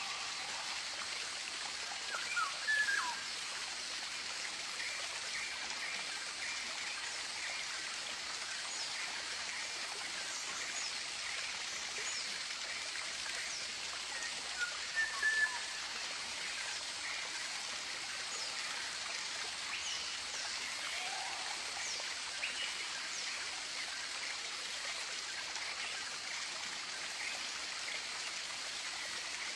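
Tropical bird ambience: short chirps and whistles scattered throughout over a steady hiss of running water. Two louder calls stand out, about two and a half seconds in and again around fifteen seconds in.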